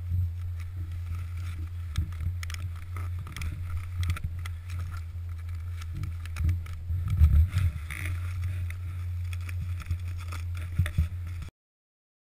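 Steady low rumble of wind buffeting a helmet-mounted camera's microphone while snowboarding through deep powder, with the hiss, scrape and crunch of the board in the snow. Louder bumps come about seven seconds in, and the sound cuts off suddenly near the end.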